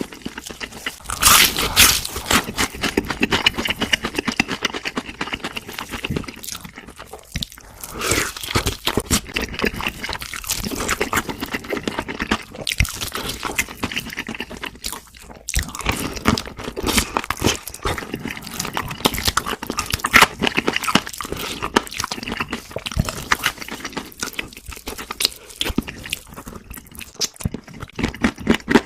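Close-miked crunching and chewing of crispy fried food, a dense run of crackly bites and chews. Louder crunches come about a second and a half in and again about two-thirds of the way through.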